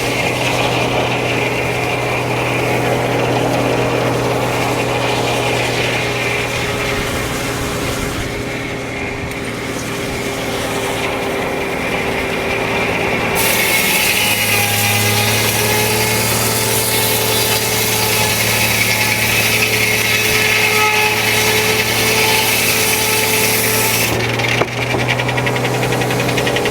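Frick No. 1 sawmill running with a steady mechanical hum from its power unit and spinning circular saw. From about halfway in, a hissing stretch of some ten seconds is added, the sound of the blade cutting through the log.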